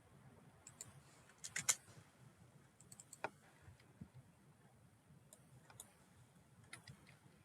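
Faint, scattered clicks from a computer mouse and keyboard, with a short burst of several clicks about one and a half seconds in.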